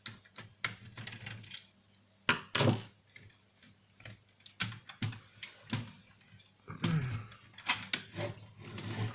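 Irregular clicks and clatters of small plastic and metal parts and a screwdriver being handled while a PlayStation 1 console is taken apart, with one louder knock about two and a half seconds in.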